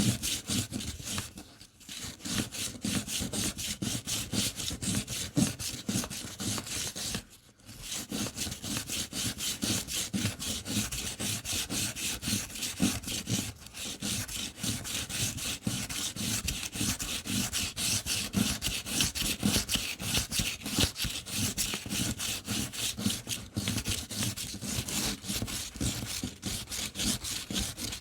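A small wooden ring being hand-sanded: rubbed back and forth on a sheet of sandpaper laid flat, rolling as it goes. The rapid, steady scratchy strokes pause briefly twice in the first several seconds.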